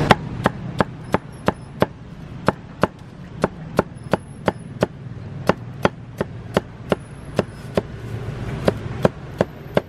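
Heavy meat cleaver chopping roast pork with crisp crackling skin against a chopping board: sharp, even strokes, about three a second, in runs with brief pauses.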